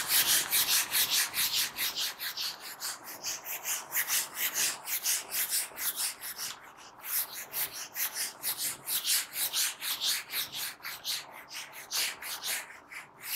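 A handheld eraser wiped rapidly back and forth across a whiteboard, several strokes a second, easing briefly about six to seven seconds in.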